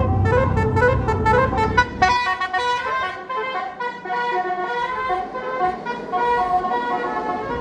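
Basuri 'telolet' multi-tone musical horn on a tour bus playing a tune: a quick run of short notes, then longer notes stepping in pitch. A heavy engine rumble runs under it for the first two seconds, then fades.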